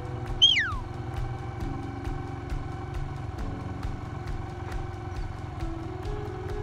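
A small engine idling steadily throughout. About half a second in, one sharp whistle sweeps down in pitch, like a handler's whistle command to a working sheepdog.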